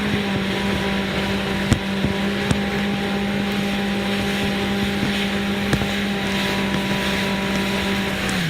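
Jet ski engine running at a steady speed, one even drone over a rushing hiss, with a few brief knocks.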